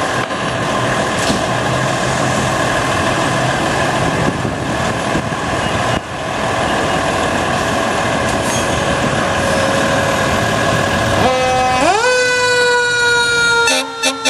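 2007 American LaFrance ladder truck running loudly as it pulls out of its bay on an emergency response. About eleven seconds in, a loud warning tone starts, rising in pitch for under a second, then holds steady with a few short breaks near the end.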